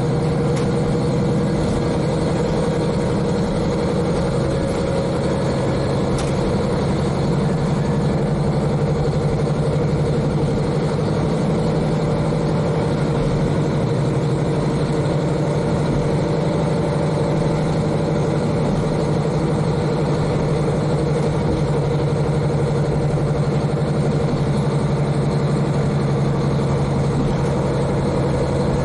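KiHa 40 diesel railcar's N-DMF13HZI diesel engine running steadily, heard inside the car from directly above the engine, with the train's running noise underneath.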